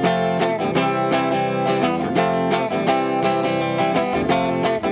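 Background music led by strummed acoustic guitar, with evenly spaced chords.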